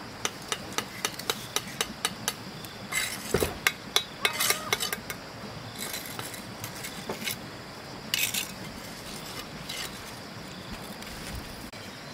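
A quick run of light knocks, about four a second for the first two seconds, then irregular knocks, clinks and short scrapes.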